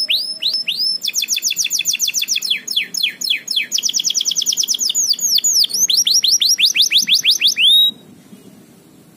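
Panda-pied local canary singing a fast song of rapid repeated down-slurred notes, switching between several trilled phrases, then stopping abruptly near the end. The owner judges the bird over-conditioned for breeding ("over birahi"), which is why it sings so readily.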